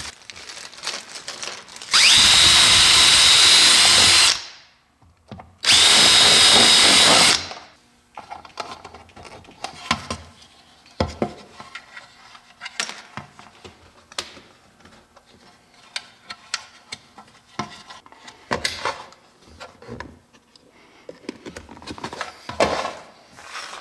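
Cordless drill-driver run twice, about two seconds each time, with a steady high whine over the motor noise. Scattered light clicks and taps follow as small parts are handled.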